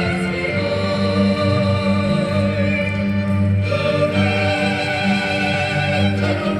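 Opera-style group singing over music, the voices holding long notes that change pitch every second or so.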